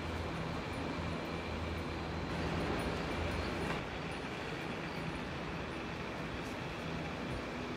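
Steady low hum and rumble of an aerial ropeway running, its gondola and haul cable moving. It is slightly louder for a second or so just before four seconds in.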